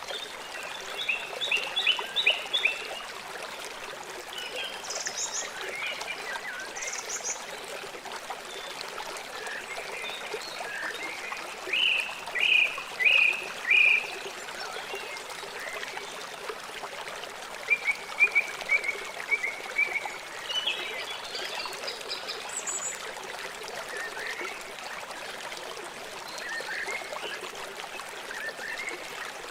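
A river or stream running steadily, a constant rushing trickle. Birds call over it in scattered bursts: a run of chirps near the start, four loud notes about twelve seconds in, a quick trill around eighteen seconds, and a few thin high notes.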